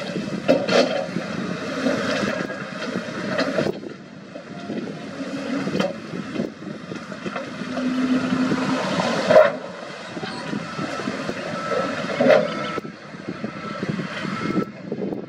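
Wheel loader's diesel engine working under load as it pushes soil, its sound swelling and easing with the work.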